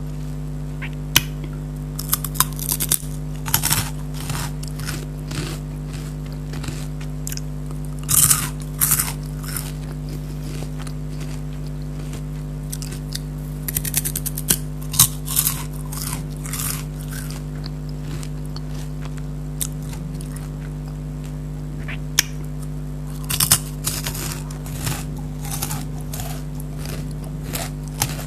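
Kurkure crunchy corn snacks being bitten and chewed close to the microphone: four bouts of crackly crunching with quieter pauses between them. A steady low hum runs underneath.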